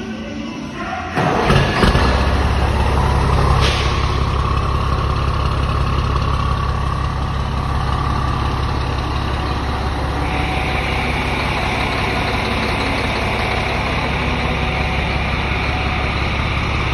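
Scania 114 diesel truck with a straight-pipe exhaust, the engine starting about a second in and settling into a steady idle.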